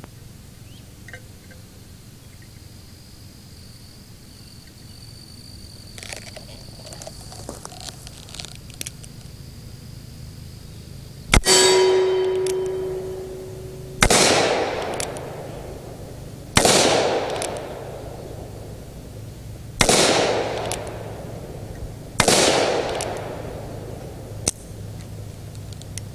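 Revolver fired one-handed, five shots about two and a half to three seconds apart, starting about eleven seconds in. Each report is followed by an echo that dies away over a second or two.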